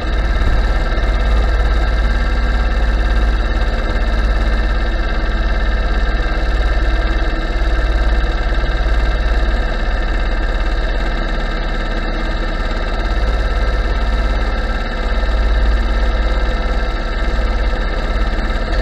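Go-kart engine idling steadily while the kart stands still.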